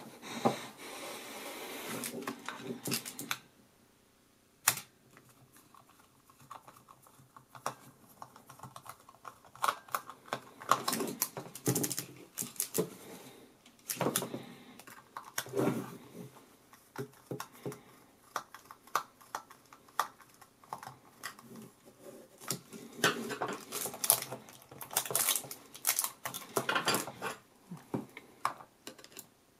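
Small Phillips screwdriver working the screws of a toy night-vision goggles' plastic battery box: irregular clicks, taps and scrapes of metal on hard plastic as the box is handled and turned. A rustle runs for the first few seconds, and there is one sharp click just under five seconds in.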